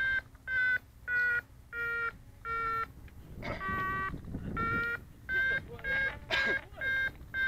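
RC glider telemetry variometer beeping: short regular tones, about one and a half a second, whose pitch shifts slightly. The glider is climbing, going up from 150 to 200 metres without its motor. A rougher, louder stretch interrupts the beeps near the middle for over a second before they resume.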